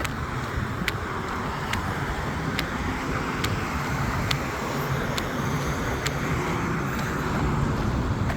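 Road traffic running steadily, with a faint sharp tick repeating about once a second.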